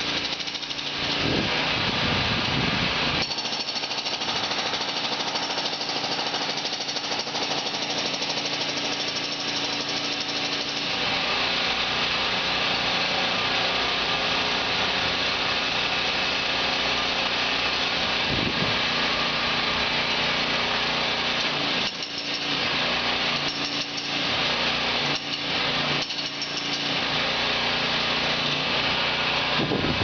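Jackhammer hammering steadily, with a few brief breaks in the last third.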